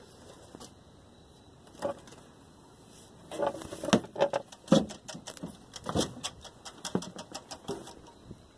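Rummaging through rubbish in a dumpster: irregular knocks, clunks and rustles of boxes and bags being shifted, mostly from about three seconds in.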